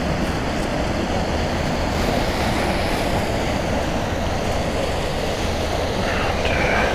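Steady rush of water pouring out of a drainage culvert.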